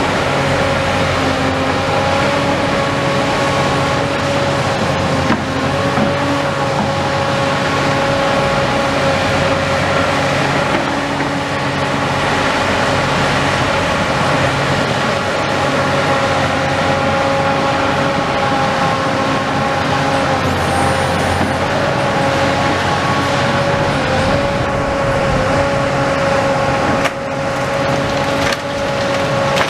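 Hyundai tracked excavator's diesel engine running steadily, with a steady whining tone over it, as it works its rotating demolition grab; a few sharp cracks come near the end.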